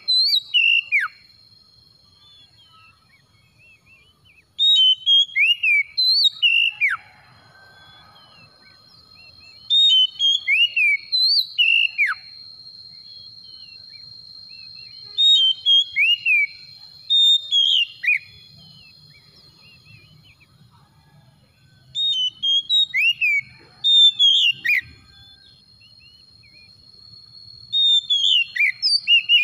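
Oriental magpie-robin singing: six loud bursts of clear whistled phrases built from sharply falling notes, one every five or six seconds, with quiet gaps between. A faint steady high tone runs underneath.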